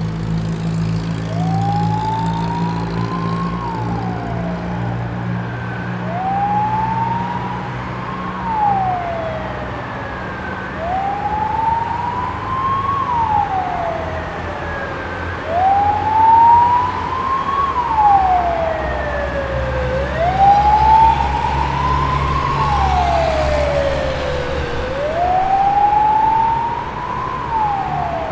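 Fire engine siren on a slow wail: each cycle climbs in pitch for about two and a half seconds, then drops for about a second and a half, six cycles in all. A steady low rumble sits underneath.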